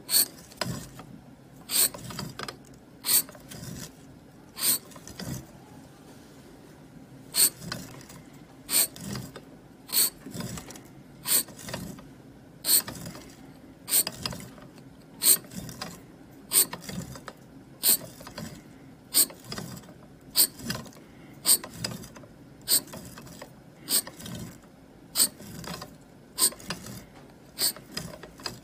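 A small brass blade scraping grooves into a block of soap: about twenty sharp, short scraping strokes, one every second or so, with a brief pause near the start.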